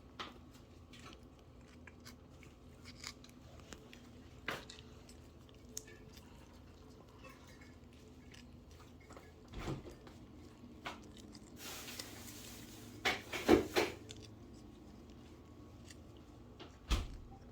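Cats eating treats: scattered small crunches and clicks, with a brief rustle and a few louder knocks a little past the middle.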